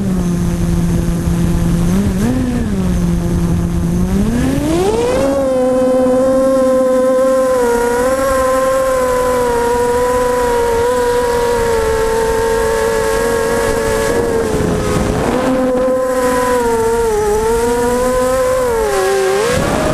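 Six brushless motors with 5-inch props on an FPV hexacopter, heard from the camera mounted on its frame. They hum at a low idle pitch with a short blip about two seconds in, then throttle up for takeoff about four to five seconds in, rising to a higher steady whine that dips briefly in pitch a few times near the end as the craft manoeuvres, over steady wind noise.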